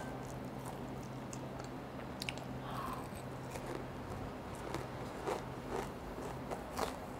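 Close-up chewing of a mouthful of crispy breaded pork cutlet (tonkatsu): a scattered run of small crunches and wet mouth clicks, over a steady low hum.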